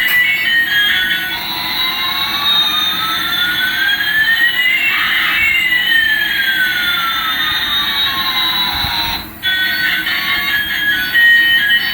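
An electronic sound effect: one tone rises slowly while another falls, the two crossing midway, over steady beeping tones. The pair cuts off suddenly about nine seconds in.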